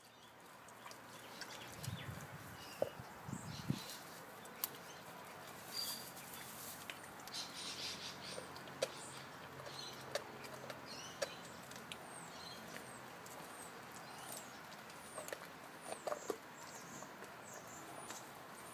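Rottweiler gnawing and crunching a large raw beef bone: irregular cracks and clicks of teeth on bone.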